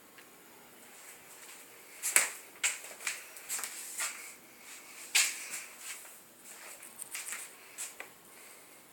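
Irregular sharp clicks and knocks with some rustling. They begin about two seconds in and come at uneven intervals, the loudest two about three seconds apart.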